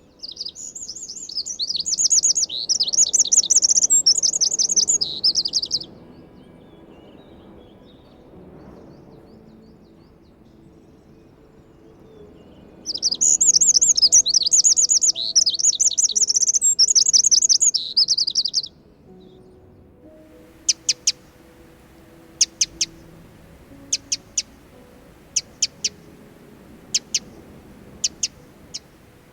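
Eurasian wren singing: two loud bursts of rapid, high trilling song, each about six seconds long. These are followed by short sharp calls, mostly in pairs, every second or two.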